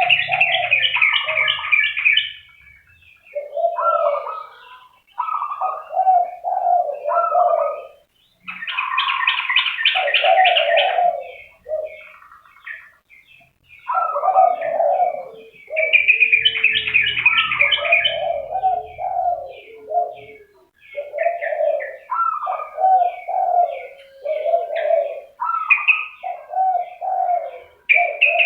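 Zebra doves and spotted doves calling: repeated low cooing phrases, interleaved every few seconds with bursts of fast, higher trilled notes.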